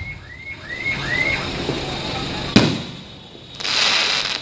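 Aerial fireworks: one sharp shell burst about two and a half seconds in, then a hissing rush near the end.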